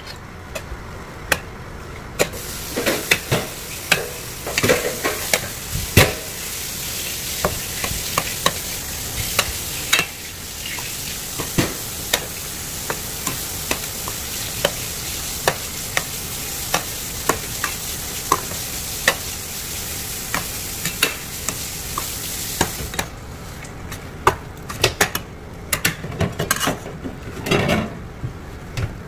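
Jjapaguri noodles and onions sizzling in a hot stainless steel pan as they are stir-fried, with frequent clicks and scrapes of a utensil against the pan. The sizzle drops away near the end while the clicking goes on.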